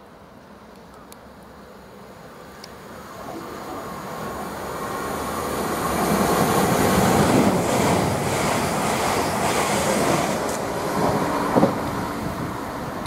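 Class 444 Desiro electric multiple unit passing through the station at speed. Its wheels and running gear grow steadily louder, are loudest about six to eight seconds in, then ease slightly as it draws away, with a sharp clack from the wheels near the end.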